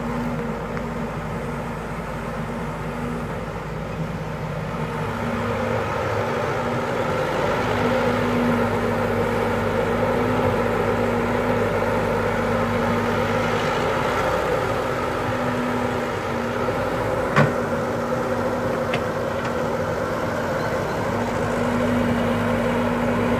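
Caterpillar hydraulic excavator's diesel engine running steadily while it digs. The engine grows louder about five seconds in and holds there, with a single sharp knock about three-quarters of the way through.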